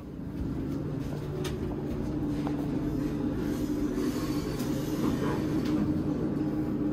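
Hotel elevator running: a steady low mechanical hum with a faint drone that grows gradually louder, with a few light ticks.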